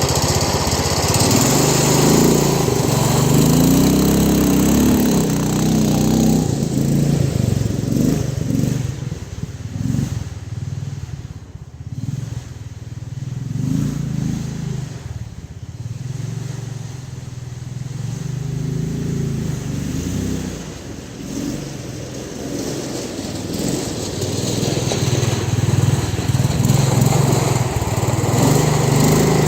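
Small petrol engine of an off-road tractor running after a rope start, its speed rising and falling as it is driven. It sounds rough, which the owner puts down to body panels rattling rather than anything loose in the engine.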